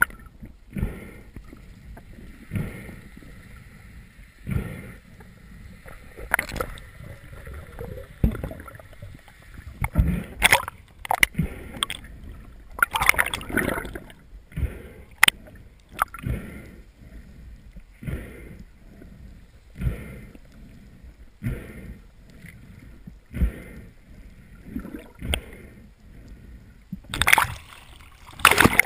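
Water swishing and knocking against an underwater camera housing about every two seconds, over a low rumble, with louder splashing near the end as the camera breaks the surface.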